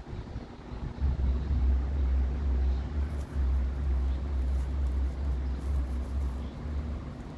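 Britânia Super B40 electric fan running steadily, with a constant motor hum and its air stream buffeting the microphone in a low rumble.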